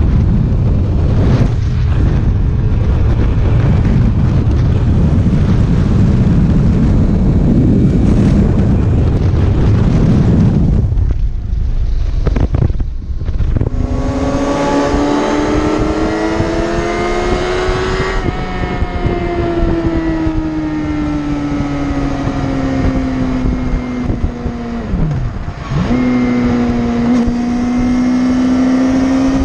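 Wind buffeting the microphone at speed, then, from about halfway, a Yamaha R6 sport bike's 600cc inline-four engine at high revs: its pitch climbs under hard acceleration, steps down at a gear change, then holds high. A brief sharp drop near the end as the throttle is closed and reopened.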